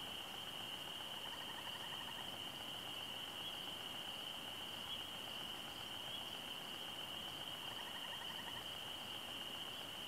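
Steady high-pitched insect chorus, with two short, lower trills about a second in and again near the end.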